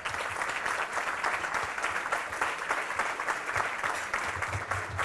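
A crowd applauding, many hands clapping together, dying down near the end.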